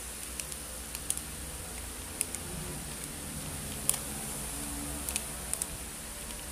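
Thin plastic sachet crinkling and crackling in a child's hands as it is squeezed and worked: short sharp crackles, singly or in quick pairs, at irregular intervals, the loudest about four seconds in.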